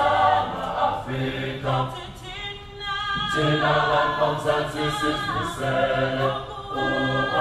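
Group of voices singing together a cappella, a choir-like song sung in phrases with short breaths between them.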